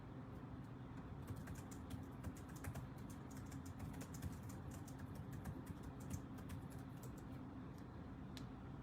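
Rapid clicking of keys being typed on a computer keyboard, starting about a second in and stopping shortly before the end, over a low steady hum.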